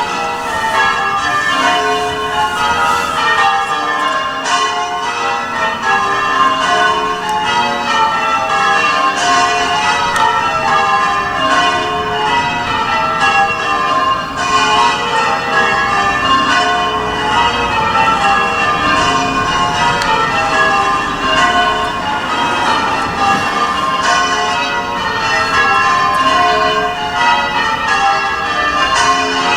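Church bells being change rung: a continuous, even stream of bell strokes, the bells sounding one after another in shifting order, each stroke ringing on over the next.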